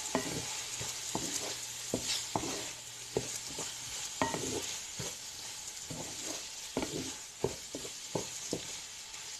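Leftover rice frying in oil and soy sauce, sizzling steadily while it is stirred, with irregular knocks and scrapes of the stirring utensil against the pan.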